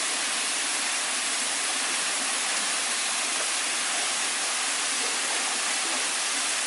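Waterfall: the steady, unbroken rush of falling water, with a hiss that sits high and little low rumble.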